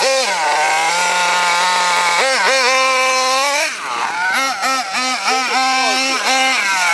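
Small glow-fuel nitro engine of a Hobao Hyper ST RC truggy running, its pitch rising and falling with the throttle. It holds a steady note for about two seconds, then gives a series of quick throttle blips in the second half.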